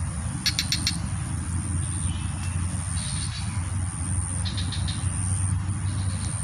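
Steady low rumble of distant traffic under a high, thin, steady buzz that breaks off briefly about once a second. Several short runs of rapid chirps come through it, the clearest about half a second in.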